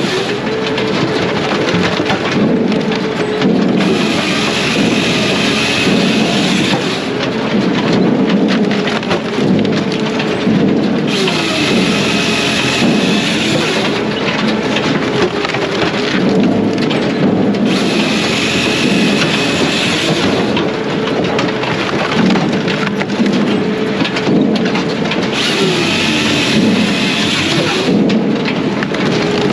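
Brute Force USA 18-24HD diesel firewood processor running while processing hardwood. The engine tone dips and recovers under load, and a harsher burst lasting about three seconds comes roughly every seven seconds, four times in all.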